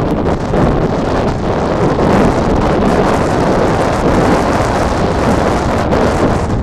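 Strong wind buffeting the microphone over the steady rolling noise of a freight train of enclosed autorack cars passing close by.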